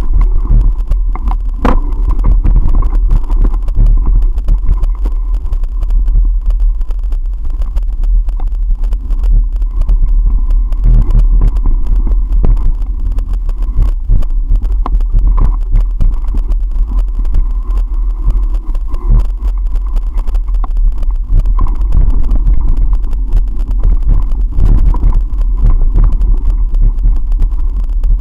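Mountain bike ride on a bumpy dirt singletrack, heard through a bike- or helmet-mounted camera: a loud, continuous low rumble with constant irregular knocking and rattling as the camera jolts over the trail.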